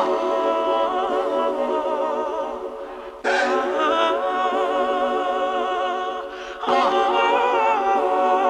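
Electronic dance music breakdown with no bass or drums: sustained chords under a wavering, voice-like melody, in three phrases that each start abruptly about every three and a half seconds and fade away.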